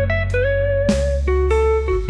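Background music: a slide or electric guitar melody with notes that glide between pitches over a steady bass, and a percussive hit about a second in.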